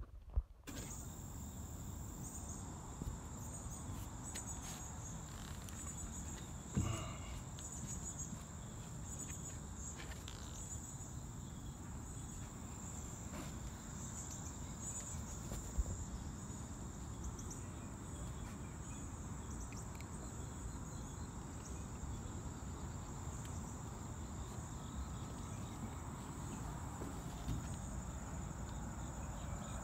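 Steady high-pitched chorus of insects, pulsing a little during the first several seconds, over a low rumble on the microphone with a few soft thumps, the clearest about seven seconds in.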